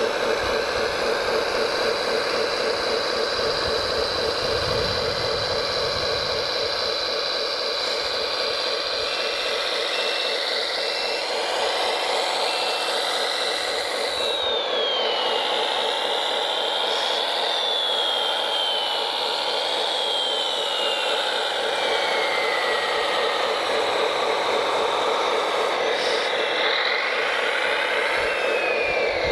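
Electric motors and hydraulic pump of radio-controlled construction machines running: a steady buzzing hum under a higher motor whine that slides up and down in pitch, mostly falling, through the second half.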